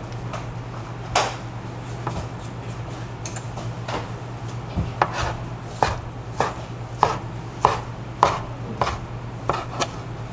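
Knife chopping food, a dozen separate strokes. The first few are slow and uneven, then about halfway through they settle into a steadier rhythm of nearly two a second.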